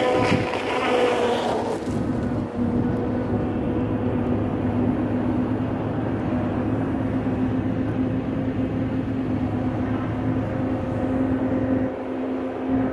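Heavy machinery engine running at a steady speed, a constant drone.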